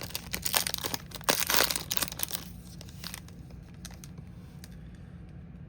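A trading-card pack's foil wrapper being torn open and crinkled in the hands, a dense crackle that stops about two and a half seconds in.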